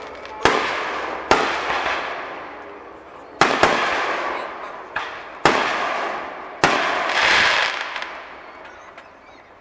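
Aerial fireworks shells bursting overhead: about seven sharp bangs, two of them in quick pairs, each followed by a long fading echo. A wash of noise swells after the last bang, then dies away near the end.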